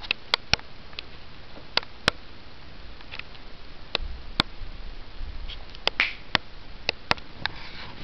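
A dozen or so short, sharp clicks at uneven intervals, some in quick pairs.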